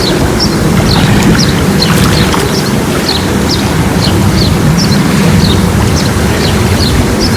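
Birds chirping over and over: short, high, falling calls, about three a second, over a loud, steady low rumble.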